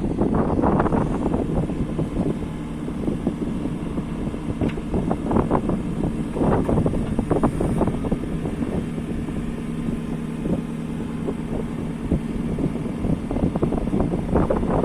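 JCB 3CX backhoe loader's diesel engine running steadily, with bursts of short metallic knocks and clatter from the machine several times. Wind on the microphone.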